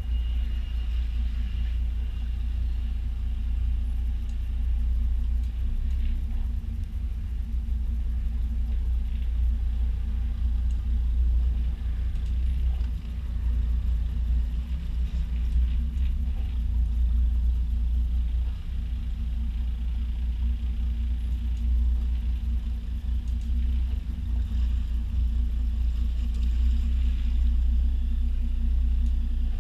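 Twin Yanmar diesel engines of a 1988 Chris Craft 315 Convertible running at low speed while the boat backs into its slip: a steady, deep rumble that wavers slightly in level.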